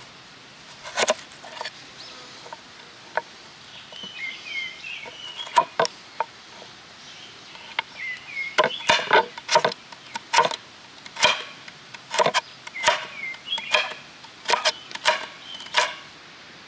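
Sharp wooden knocks, typical of a knife chopping on a cutting board: a few scattered strokes, then a steadier run of about one or two a second from about halfway in. Small birds chirp between the strokes.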